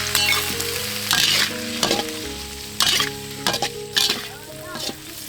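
Food sizzling in a frying pan while a utensil stirs it, with several sharp scrapes against the pan. Soft background music with held notes plays under it.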